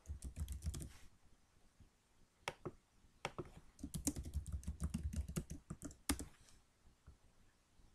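Typing on a computer keyboard in quick runs of keystrokes: one run in the first second, a few single taps, then a denser run from about 4 to 5.5 seconds as a password is entered. One louder single click comes about 6 seconds in.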